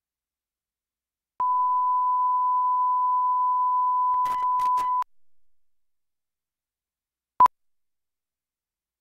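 A steady electronic reference tone held for about three and a half seconds, with a few crackling clicks near its end before it cuts off. About two seconds later comes a single short beep at the same pitch: the line-up tone and sync beep of a film countdown leader.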